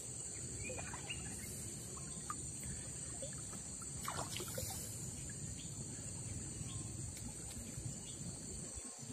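Faint sloshing and trickling of river water around a man wading in the current, over a steady high insect drone.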